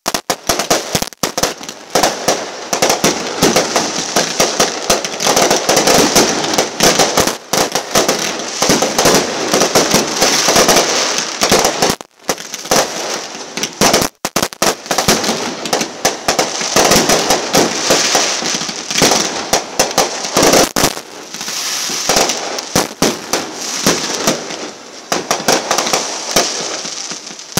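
Aerial fireworks fired from the ground in quick succession: a dense string of bangs and pops with crackling over the top, broken by brief gaps about 12 and 14 seconds in.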